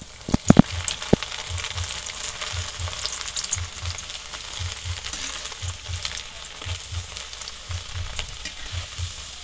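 Chana dal (split Bengal gram) deep-frying in hot oil in a metal kadai: a steady, dense sizzle and crackle as the freshly added dal foams in the oil, with a few loud sharp pops about half a second in as the handful hits the oil.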